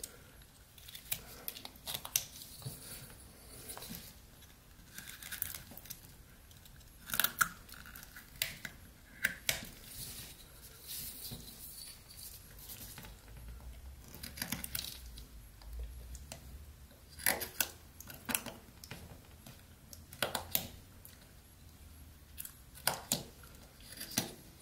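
Rough Rider pocket knife blade whittling old pine: irregular short slicing and scraping cuts, often several in quick succession.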